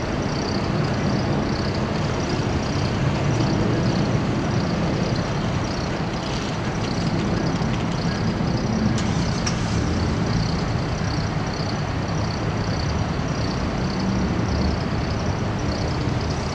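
Steady low rumble of a large vehicle running, with a faint high, evenly repeating hiss above it.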